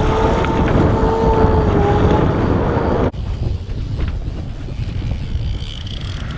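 Wind buffeting the microphone over the running noise of a trolling boat. For about three seconds a steady whine rides on top, then it cuts off abruptly and the wind and boat noise carry on more quietly.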